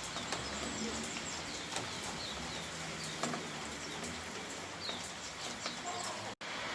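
Steady rain falling, with scattered individual drips and a few short high chirps over it. Near the end the sound cuts out for an instant and comes back as a denser, more even rain hiss.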